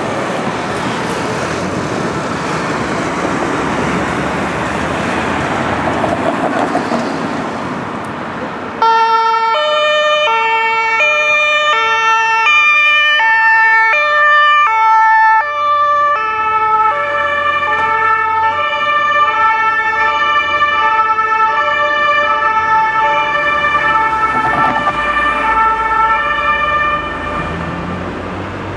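Traffic noise, then about nine seconds in a German police van's two-tone siren (Martinshorn) switches on suddenly, loud, alternating between two pitches about once a second. The tone pair drops slightly in pitch about halfway through as the van passes, and the siren fades near the end.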